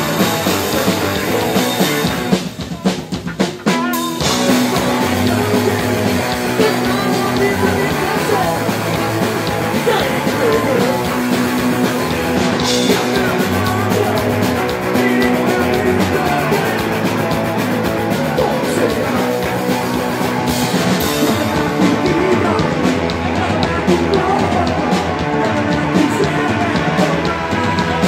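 Live punk rock band playing loud: drum kit, guitar and a singer. About two and a half seconds in the band drops into a brief stop-start break, then the full band comes back in and plays on.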